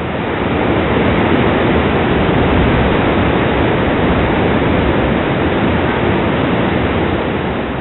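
Loud, steady rush of flowing water, even throughout and easing off slightly near the end.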